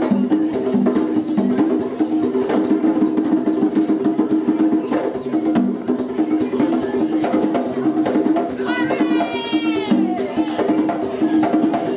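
Live East African hand drumming with shakers, a steady driving rhythm. About nine seconds in, a short high whoop rises over the drums.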